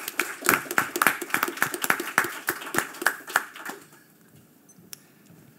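A small audience applauding with rapid, dense clapping that dies away after about four seconds, followed by a single sharp click.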